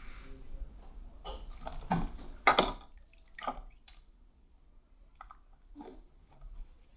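Wet slime being squished and worked by hand in a glass bowl, a string of irregular squelches and drips.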